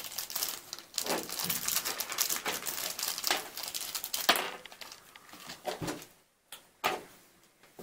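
Thin plastic bag crinkling and rustling in the hands as it is opened, with scattered crackles; the rustling dies down about five seconds in, leaving a couple of small clicks.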